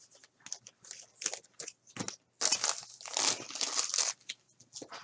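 Trading card pack wrapper being torn open and crinkled by hand, in a run of irregular crackles that is busiest a little past the middle.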